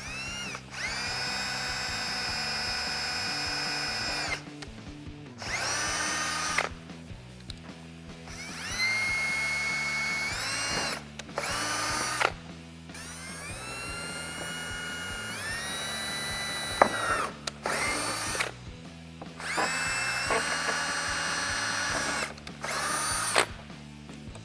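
Cordless drill/driver running in repeated short bursts, its motor whine rising as it spins up and falling as it stops, drilling pilot holes through the plastic bumper cover and the ABS chin splitter.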